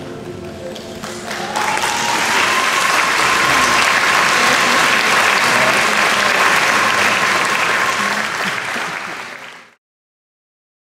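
Audience applauding at the close of the duet, breaking in over a last held high note. The applause cuts off abruptly near the end.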